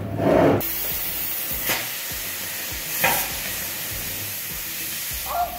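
Oxy-acetylene cutting torch: a short low rush of flame as it is adjusted, then from about half a second in a steady loud hiss of the cutting jet burning through a steel cab mount fastener, with two brief louder spurts.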